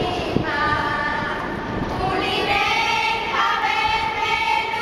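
A group of young female voices singing a song together, holding long notes.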